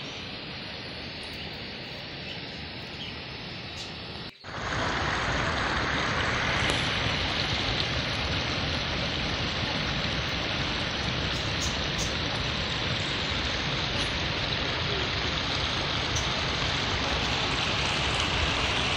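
Rushing water: a small waterfall running steadily into its pool. After a brief dropout about four seconds in, white water pouring over a ledge and down a channel close by is louder.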